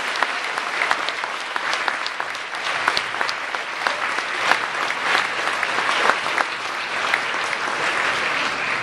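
A crowd applauding, many hands clapping together in a steady, dense patter.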